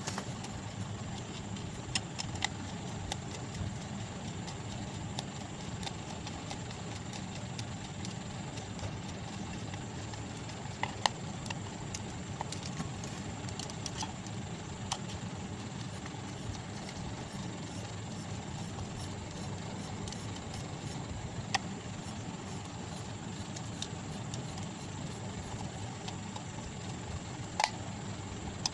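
Sparse, light clicks and ticks of a screwdriver's metal tip on the screws of a plastic stand-fan motor housing as they are turned, over a steady low background hum.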